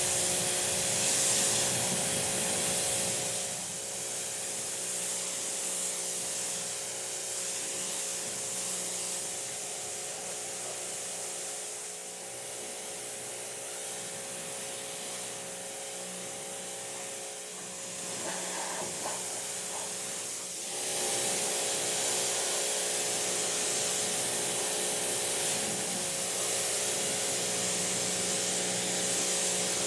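A motor-driven machine running steadily under a loud hiss. Its hum changes and the level drops about three and a half seconds in, then comes back up about twenty-one seconds in.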